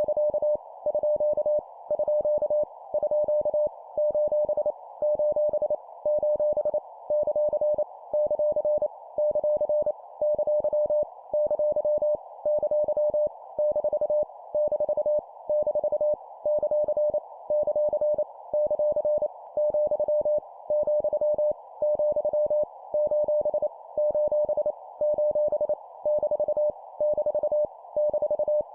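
Morse code (CW) sent at 25 words per minute as a single medium-pitched keyed tone, rapid dits and dahs with a short pause about once a second between groups. It is heard over a steady narrow hiss, with random punctuation characters each sent three times.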